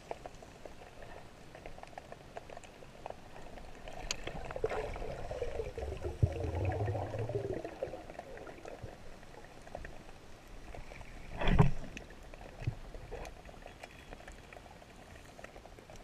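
Underwater sound picked up by a camera in its waterproof housing during a spearfishing dive: faint scattered clicks and crackles, a low hum that swells and fades from about four to eight seconds in, and one sharp knock about two-thirds of the way through.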